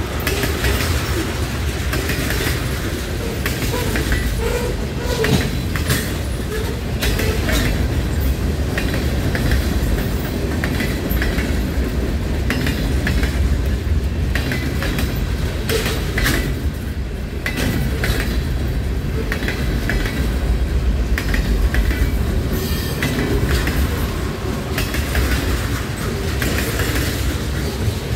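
Freight train of tank cars and boxcars rolling past close by: a steady low rumble of the wheels with frequent irregular clicks and clanks from the wheels on the rails.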